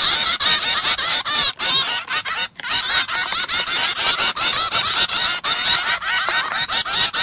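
A group of small pet finches chirping rapidly, many short high calls overlapping almost without a break.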